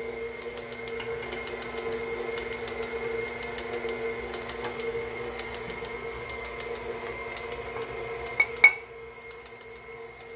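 KitchenAid tilt-head stand mixer running at a steady speed with a hum, creaming butter and sugar while eggs are added one at a time. Two sharp clinks about eight and a half seconds in.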